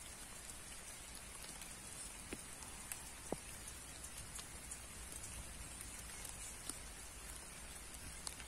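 Light rain falling: an even patter with scattered small drop ticks. A couple of sharper clicks stand out about two and three seconds in.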